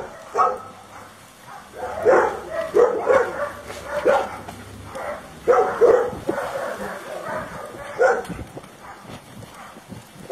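A dog giving short, high barks and yips, about a dozen of them in clusters.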